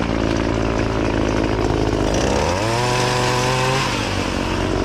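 Gas-powered pole saw engine running, revving up about two seconds in, holding high for over a second, then dropping back to a lower speed.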